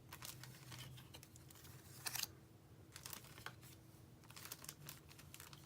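Faint rustling and light tapping of paper sheets, vellum and acetate being handled and stacked together, with a slightly louder rustle about two seconds in.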